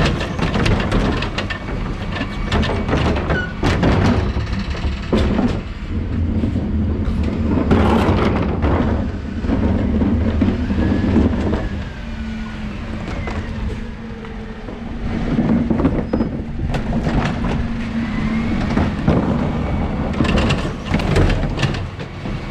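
Dennis Elite 6 refuse truck's diesel engine running while wheelie bins knock and clatter against the rear bin lift as they are tipped, with repeated sharp bangs.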